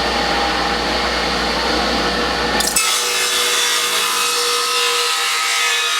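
A power saw cutting wood, with a steady motor whine under the noise of the cut. The sound changes about three seconds in, getting hissier as the low hum drops away.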